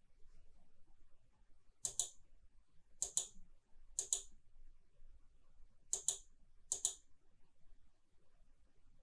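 Five quick double clicks of a computer mouse, sharp and bright, spaced a second or two apart over a faint low hum.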